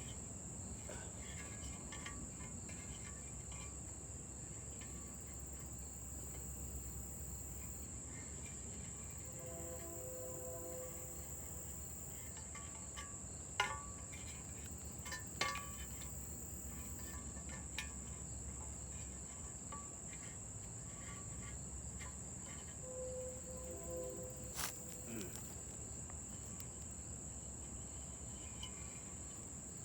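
A steady, high-pitched insect chorus, typical of crickets, with a few sharp clicks partway through.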